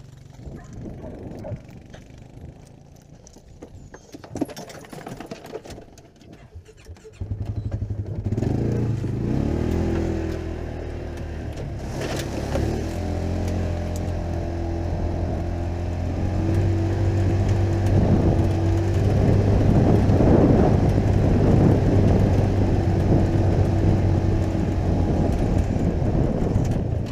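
Side-by-side utility vehicle's engine running as it drives across a field, heard from the driver's seat. After a quieter stretch of scattered knocks and rattles, the engine comes in loudly about seven seconds in, rises a little in pitch and then holds a steady note.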